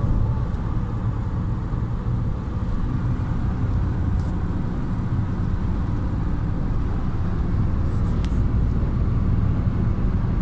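Steady low rumble of a car's engine and tyres on the motorway, heard from inside the cabin at highway speed. A few faint clicks come about four and eight seconds in.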